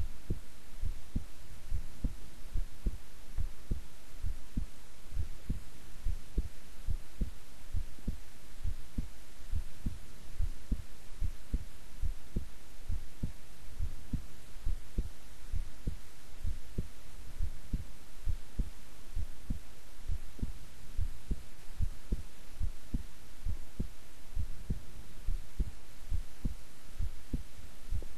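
A woman's resting heartbeat: low lub-dub beats in a steady, even rhythm, about one beat a second, over a faint steady hum.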